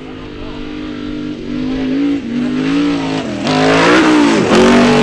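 Trophy Truck racing engine revving hard under full throttle, with brief dips in revs about two and three and a half seconds in. It grows louder as the truck nears, and its pitch dips sharply and recovers about four and a half seconds in.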